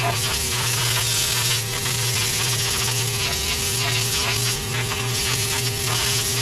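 Air compressor running steadily, a continuous mechanical hum.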